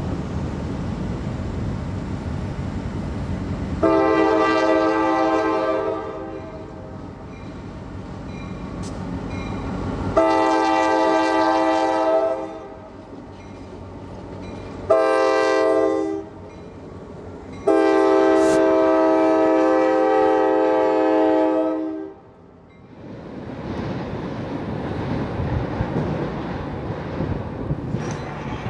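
Diesel freight locomotive air horn sounding the grade-crossing signal, long, long, short, long, over the low rumble of the locomotive's diesel engine. After the last blast the horn stops and a steady rushing noise carries on.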